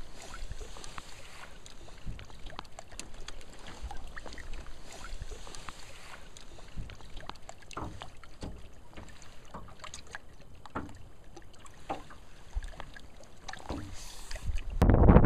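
Small knocks and handling sounds in a small fishing boat over a low wind rumble. Near the end a much louder gust of wind hits the microphone.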